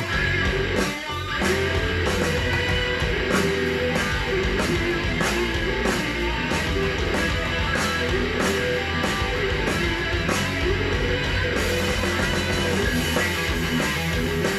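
Guitar-led rock music played back through JVC EX-P1 wood-cone bookshelf speakers, picked up by a microphone in the room. It has a steady drum beat and bass.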